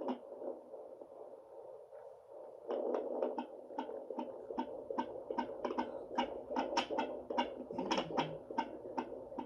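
Home fetal Doppler through its small speaker: a steady hiss, then from about three seconds in a fast, regular pulsing of roughly two to three beats a second, the probe picking up a 20-week fetal heartbeat.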